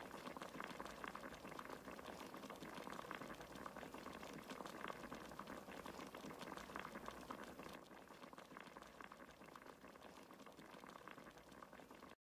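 Pork dinuguan (pork blood stew) simmering in a wide metal pan: faint, steady bubbling full of small pops, a little quieter after about eight seconds.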